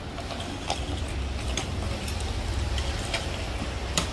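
A child's small bicycle with training wheels rolling along a sidewalk: irregular light clicks and rattles over a steady low rumble, with a sharper click about four seconds in.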